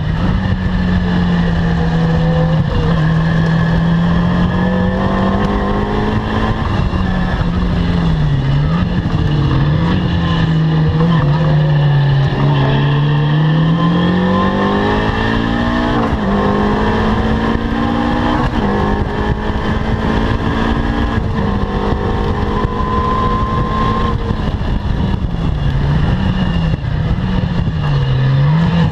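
Caterham Seven R300 race car engine running hard on a circuit. Its pitch rises and falls continuously as it accelerates, shifts and lifts, with a long climb through the revs about halfway through and quick up-and-down revs twice, around corners or downshifts.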